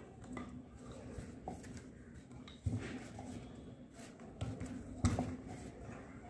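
Quiet handling sounds of dough being pressed flat by hand on a wooden rolling board, with three soft wooden knocks, the loudest near the end as a wooden rolling pin is taken up and set on the board.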